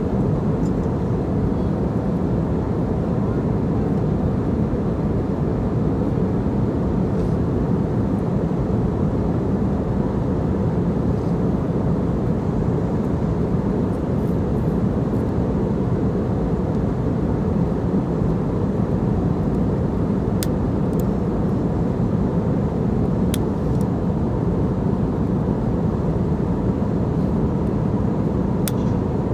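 Steady drone of an airliner cabin in flight: engine and airflow noise, low and unchanging, with a few faint ticks in the second half.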